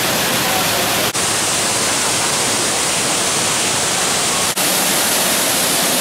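Tiered waterfall cascades rushing in a steady, dense hiss of falling water. The sound cuts out for a split second twice, about a second in and again about three and a half seconds later.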